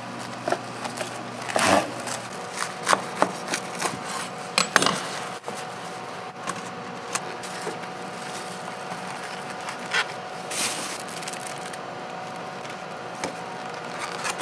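Plastic food-packaging handling: cling film rustling and crinkling around a sandwich, and a clear plastic clamshell container clicking and crackling as the sandwich halves are packed into it. Scattered sharp clicks and rustles, with a longer swish about two seconds in and again about ten seconds in, over a faint steady hum.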